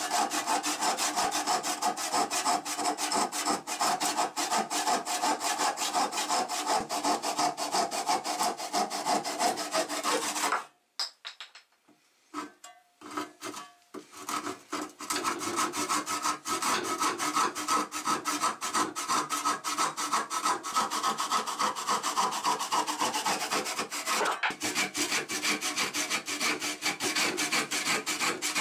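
Restored hand saw cutting a wooden block clamped in a bench vise, in quick back-and-forth strokes. The sawing stops for about four seconds a little over a third of the way in, with a few light clicks, then starts again.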